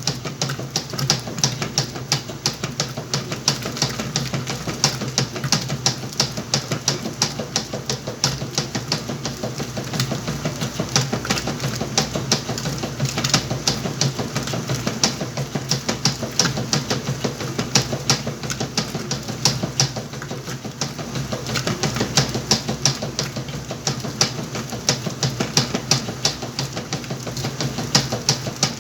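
Whirlpool washing machine running its wash cycle: a steady motor hum under a quick, continuous clatter of clicks, a few per second.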